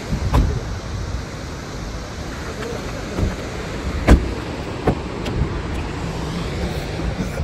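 Steady rushing of a fast, churning mountain river, broken by a few sharp knocks and clicks from car doors being handled, the loudest about four seconds in.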